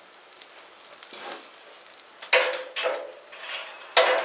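Metal tongs knocking against a wood cookstove's firebox as logs are put onto the fire: a scrape about a second in, then three sharp metallic clanks with a short ring, the last near the end the loudest, over the fire's light crackle.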